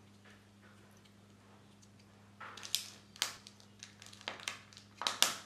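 Crinkling and sharp crackles of a Kinder Joy egg's foil seal and plastic shell being handled and peeled open by hand, starting about halfway through after a quiet start.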